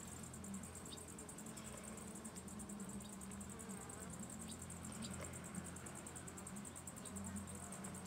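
Honeybees buzzing around an open hive: a steady low hum. A high, fast-pulsing insect trill sounds behind it.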